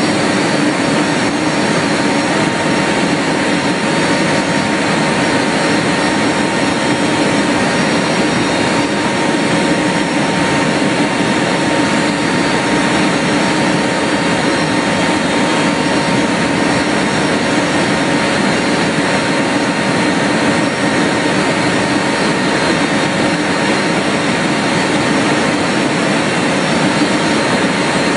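Steady drone of a small aircraft's engine with rushing air, level and unchanging throughout.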